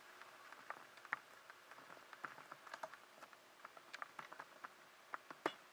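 Faint, irregular small clicks and ticks scattered over quiet room tone.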